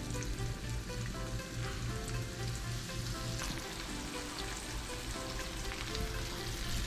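Cornstarch-coated sand dab fillets shallow-frying in hot oil in a frying pan, sizzling steadily, with background music.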